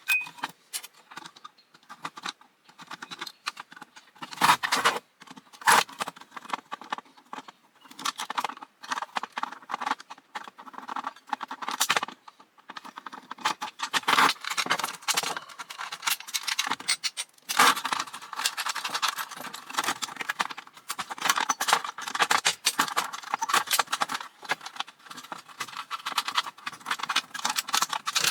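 Small metal parts of an old Square D fuse box clinking, rattling and scraping as it is taken apart by hand. There are frequent irregular sharp clicks and knocks.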